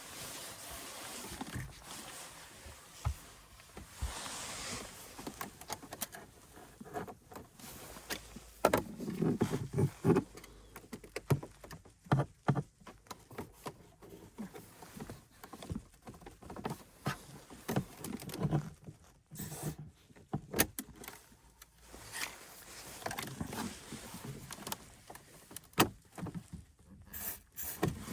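Aerosol dry-lubricant spray hissing during the first few seconds, then many scattered clicks, knocks and scrapes of handling, with a cluster of dull thumps about eight to thirteen seconds in.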